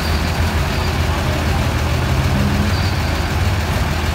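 Bus diesel engine idling with a steady low rumble.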